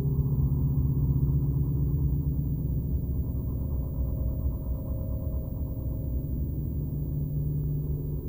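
Deep analog electronic drone: steady low tones under a rapid flutter. A faint higher tone comes in about three and a half seconds in and fades out a few seconds later.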